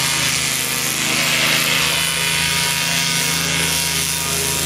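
Backpack paramotor's engine and propeller running steadily, a continuous buzz with an even pitch.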